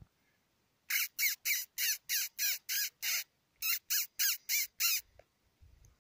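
A man's voice giving harsh, bird-like squawks as a predator call to lure a coyote: seven quick squawks at about three a second, a short pause, then five more.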